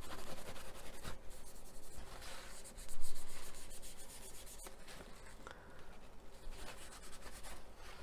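Kitchen paper rubbing over a small plastic model part to polish off a wax coating, a run of dry scuffing strokes with one louder scuff about three seconds in.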